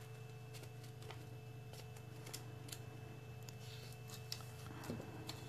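Faint crinkling and light clicks of metallic origami paper being folded in half and its crease pressed flat by hand, over a low steady hum.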